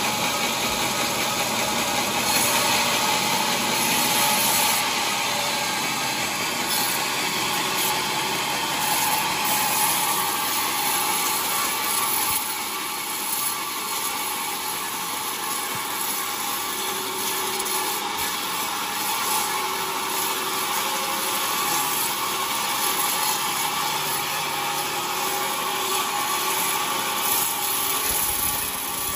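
A large sawmill saw running steadily as it cuts a coconut log, a continuous mechanical whine and rasp. It is a little louder for the first dozen seconds or so, then eases slightly.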